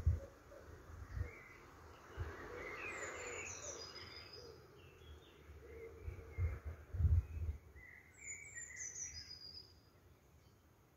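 Wild songbirds calling and singing, with two runs of high falling notes about three seconds in and again near the end, and scattered shorter chirps. A few low thumps, the loudest at the very start and about seven seconds in.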